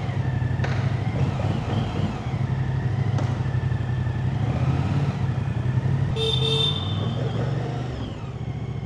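Moto Guzzi Stelvio's 1042 cc V-twin engine running steadily with a deep rumble. A short beep sounds about six seconds in.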